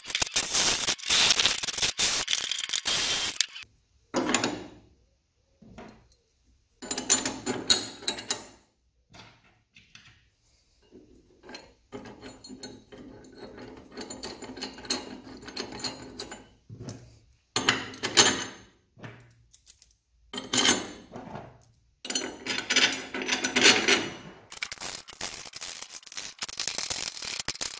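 Electric drill boring through the steel chassis rail for about three seconds. Then metal clinks and knocks as steel engine-mount brackets are fitted and bolted down, ending in a run of fast ratchet clicking as a bolt is tightened.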